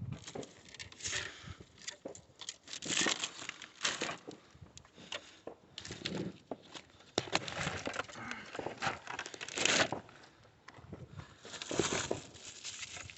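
Irregular rustling and crinkling noises that swell and fade every second or so, with scattered clicks.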